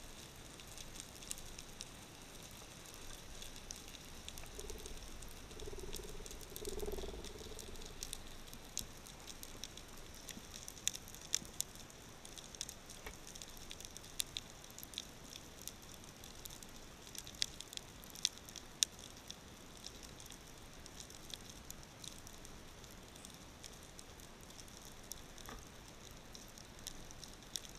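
Underwater reef ambience heard through a camera housing: a faint hiss with scattered sharp clicks and crackles, some of them louder, and a brief low hum about five to seven seconds in.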